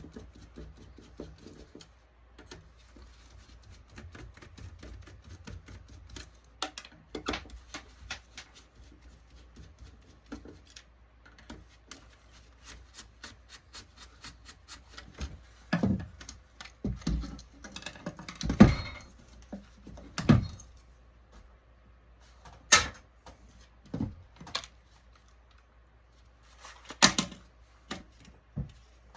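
Irregular clicks, taps and knocks of small plastic and metal parts being handled and worked apart while an electronic touchscreen panel is dismantled, with several louder knocks in the second half.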